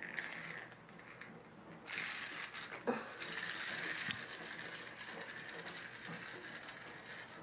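Small clockwork wind-up toy running: its spring-driven mechanism makes a rapid ratcheting whir of fine clicks. It gets much louder about two seconds in, with a couple of sharper knocks after that.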